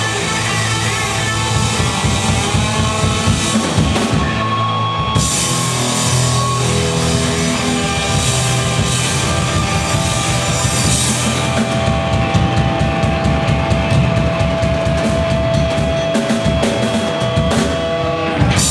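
Live rock band playing loud without vocals: two electric guitars, bass guitar and drum kit. A long held note rings through the second half.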